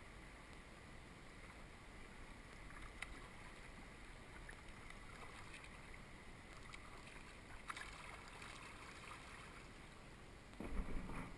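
Faint water noise around a kayak on a river, with a couple of light knocks from the boat or paddle. Near the end a louder rushing noise with a low rumble comes in.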